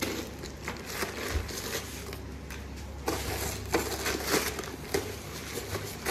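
Thin white plastic wrapping bag crinkling and crackling in irregular bursts as hands handle it and pull it open around a voltage stabilizer.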